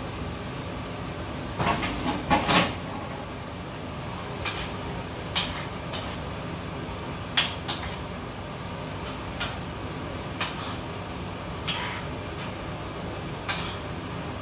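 A cooking utensil scraping and clinking against a frying pan as bistek (Filipino beef steak) is stirred. There is a quick cluster of scrapes about two seconds in, then single sharp clinks every second or two, over a steady hiss.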